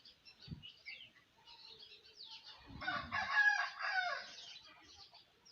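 A loud bird call lasting about a second and a half, starting near the middle, over faint chirping of small birds. A low thump about half a second in.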